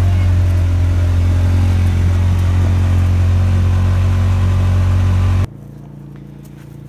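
Side-by-side utility vehicle's engine running as it drives along a dirt track: a loud, steady low drone. It cuts off abruptly about five and a half seconds in, giving way to a quieter steady hum.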